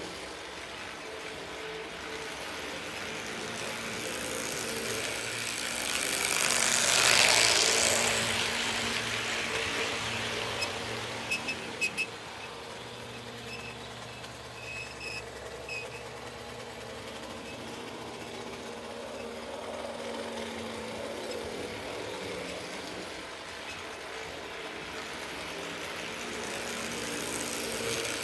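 HO scale model trains running on the layout: a steady motor hum and wheel rumble that swells as a train passes close, loudest about seven seconds in. A few sharp clicks come a few seconds later, and the sound builds again near the end.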